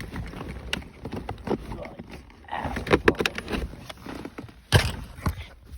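Hands working plastic center-console trim with a screwdriver: scattered clicks, scrapes and rustles, with one sharp knock about five seconds in.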